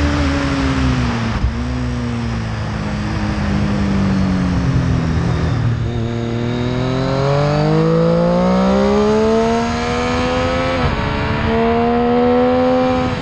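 Triumph Street Triple's inline three-cylinder engine heard onboard under wind rush. For the first few seconds the revs fall off as the bike slows into a bend. It then pulls hard with a steadily rising pitch, shifts up about eleven seconds in with a sudden drop in revs, and accelerates again.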